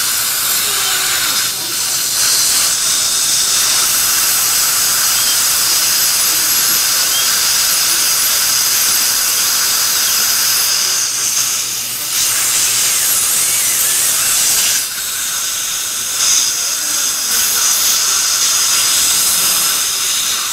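High-speed dental drill whining and hissing under its water spray as it cuts through an old dental bridge to section it for removal, easing off briefly a few times.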